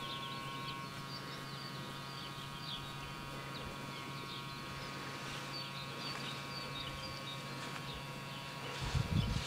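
Small songbirds chirping and twittering continuously over a steady high hum. A louder low rumble starts near the end.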